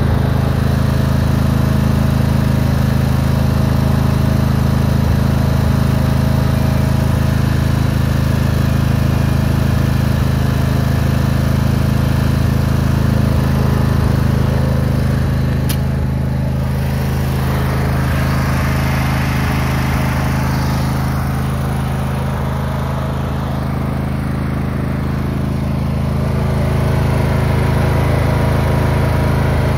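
Craftsman lawn tractor's engine running steadily. A sharp click about halfway through, then an added hiss for about ten seconds.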